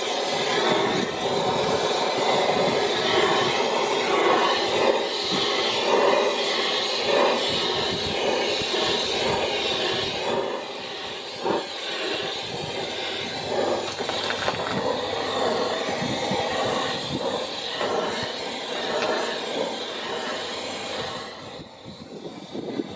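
Gas torch flame rushing steadily as it heats a rusted-on hub held under tension by a gear puller, to free it. The noise drops briefly near the end.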